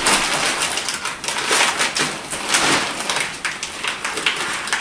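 Plastic packaging on a vacuum-sealed mattress crinkling and rustling in a steady run of irregular crackles as the mattress is handled.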